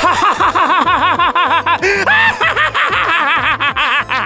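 A man's voice laughing hard in a long, rapid 'hahahaha', with a brief break about two seconds in, over background music.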